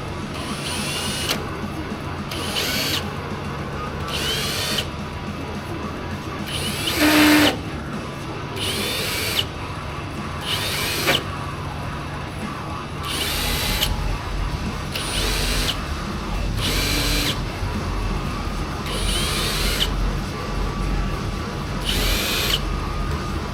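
Power drill boring holes through the car's sheet-metal hood in a series of short bursts, roughly one every one to two seconds, each with a thin squeal. Background music plays throughout.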